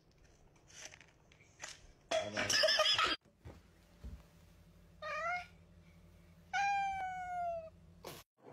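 Domestic cat meowing: a short meow about five seconds in, then a longer meow that slides slowly down in pitch. Earlier, about two seconds in, there is a loud, harsh, noisy burst, and a few sharp knocks are scattered through.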